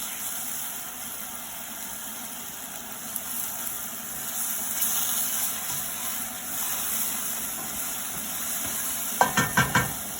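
Garlic, tomato paste and spices sizzling in olive oil in a cast iron skillet while being stirred, with a few sharp taps about nine seconds in.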